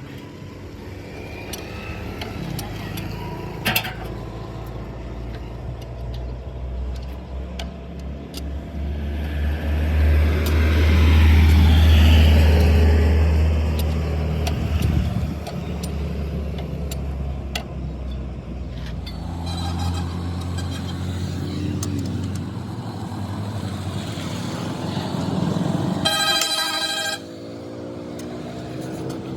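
A motor vehicle engine running, building to its loudest about halfway through and easing off a few seconds later. A brief shrill tone sounds near the end.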